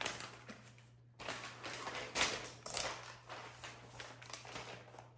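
Stiff paper protective wrap on a new laptop being pulled off by its tab and handled: a run of irregular paper rustles and crinkles, loudest about two seconds in.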